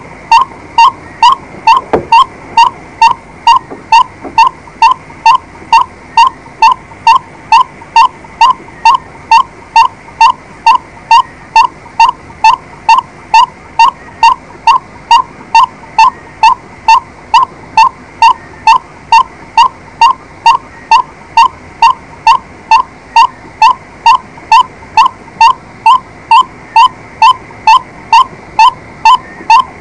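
White-breasted waterhen calling: one short, loud note repeated at an even pace of about two a second.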